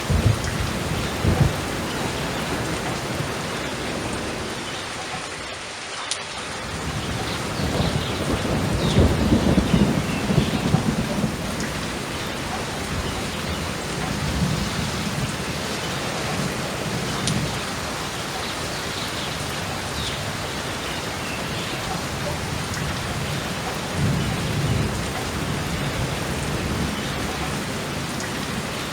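Steady rain with low rolls of thunder, several times over; the longest and loudest roll comes about a third of the way in.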